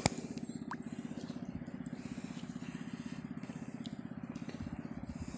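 A small engine running steadily with a fast, even throb.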